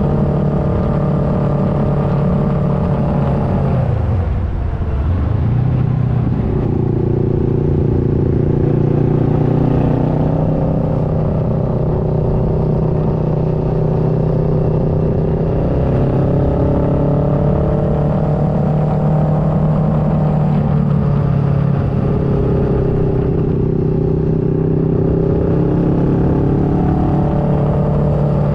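2009 Kawasaki Versys 650's parallel-twin engine running under way on a twisty road, its pitch rising and falling with the throttle. The engine note drops sharply about four seconds in, then picks up again.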